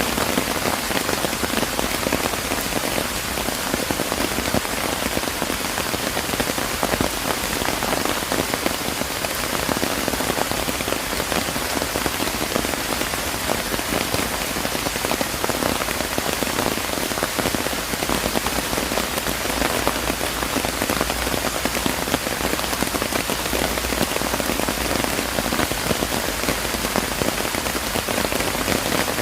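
Steady rain falling, an even hiss thick with the patter of individual drops.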